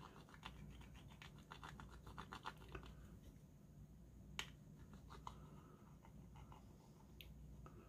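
Faint scratchy rubbing of a hobby knife's blunt metal handle end burnishing a vinyl decal down onto a model railroad car's side: quick short strokes, several a second, over the first few seconds, then a few isolated light clicks.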